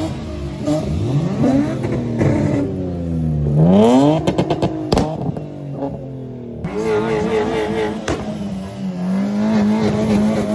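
Car engines revving hard on the street, their pitch sweeping up and falling back. The loudest rev comes about four seconds in, followed by a quick run of sharp exhaust pops.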